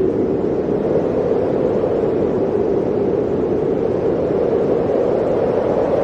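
Blizzard wind blowing steadily, an even, unbroken rush of noise with no gusts or breaks standing out.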